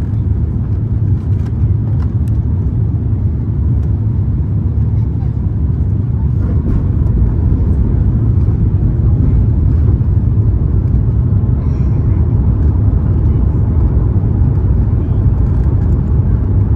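Steady low rumble of cabin noise inside an Airbus A350-900 on approach, the airflow and Rolls-Royce Trent XWB engines heard from a window seat over the wing.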